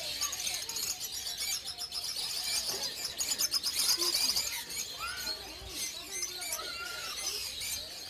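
Lovebirds chattering in their breeding cages: a dense stream of short, high chirps and squeaks, with a few lower sliding calls.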